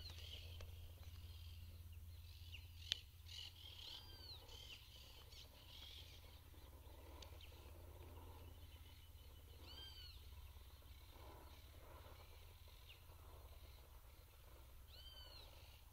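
Faint bird calls, a rising-and-falling chirp repeated every few seconds, over a low steady rumble, with one sharp click about three seconds in.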